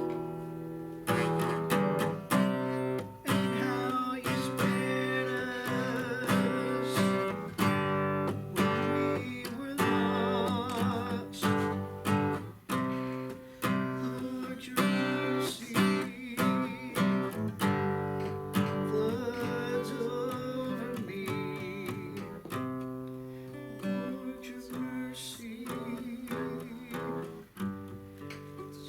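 Worship song with a strummed acoustic guitar and a singing voice in places.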